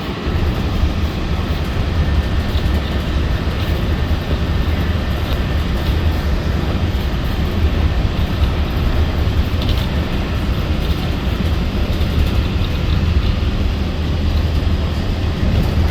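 Cabin noise from inside a moving Walt Disney World monorail: a steady low rumble of the train running along the beam.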